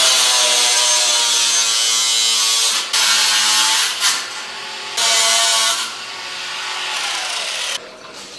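Cordless angle grinder cutting steel reinforcing mesh: three loud stretches of cutting, the motor's pitch sagging under load, then a quieter stretch that cuts off shortly before the end.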